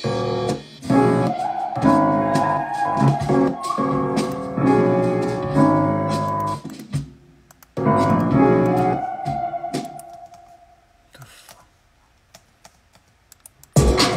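Beat playback from a laptop: a melodic keys loop that stops and restarts, then rings out into near silence with a few faint laptop key clicks. A full beat with heavy deep bass comes in near the end.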